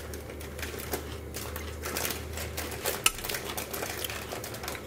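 Close-up chewing of crunchy fresh kimchi: a quick, uneven run of small crisp crunches, with one sharper crack about three seconds in.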